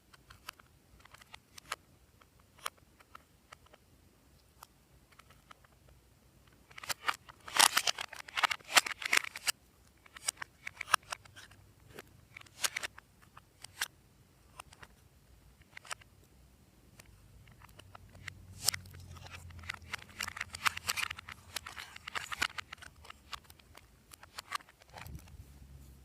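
Slime being worked by hand, giving sticky clicks and crackles. There are scattered single clicks, with two dense runs of crackling, the first about a third of the way in and the second past the middle.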